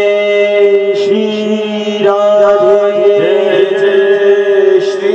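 Live Hindi devotional bhajan: a man singing into a microphone over an electronic keyboard holding sustained chords, with a few hand-drum strokes.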